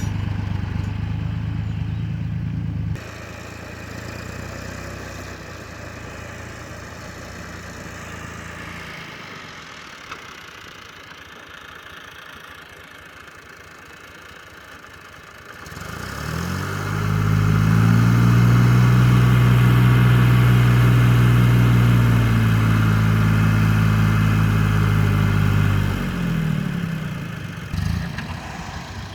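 Diesel engine of salt-harvesting machinery running, softer for the first half, then revving up about halfway through, working hard and loud for several seconds, and dropping back near the end.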